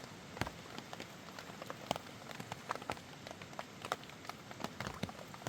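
Steady rain falling, an even hiss with frequent irregular sharp ticks and pops of drops striking nearby surfaces.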